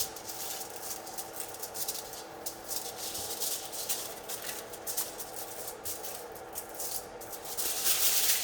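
Aluminium foil crinkling and crackling in quick, uneven bursts as it is folded into a cooking pouch, loudest near the end.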